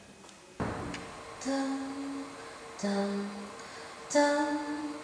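A woman's voice, amplified through a microphone and PA speaker, hums three long notes of about a second each, the pitch shifting from note to note, over a steady held tone. It opens with a sudden rush of noise about half a second in.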